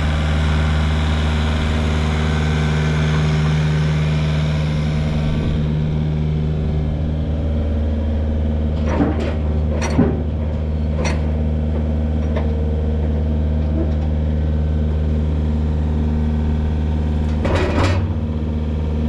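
An engine running steadily at idle, with a few sharp clicks about halfway through and a short cluster of knocks near the end.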